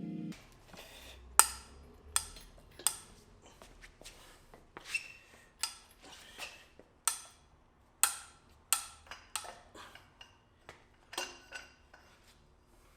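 Sharp metallic clicks and clinks of a wrench working a nut splitter on a seized steel manifold nut. They come irregularly, about one or two a second, each with a short bright ring.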